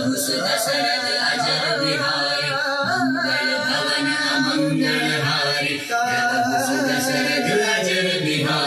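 Indian devotional song: a voice singing over musical accompaniment, with a steady low drone underneath.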